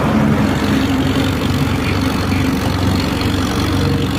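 Mahindra Arjun 605 tractor's diesel engine running steadily under heavy load in second gear, hauling a fully loaded sugarcane trolley uphill, with a low, even throb over road noise.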